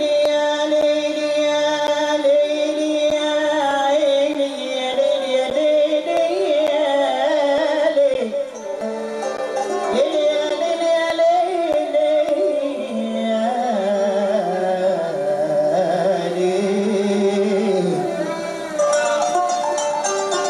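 Middle Eastern-style music played for the dance: a singing voice carrying a wavering, ornamented melody over accompanying instruments.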